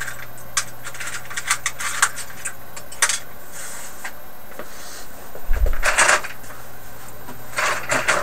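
Small hard parts clicking and rattling as they are picked through by hand, with a louder knock and rustle about five and a half seconds in and a shorter rustle near the end.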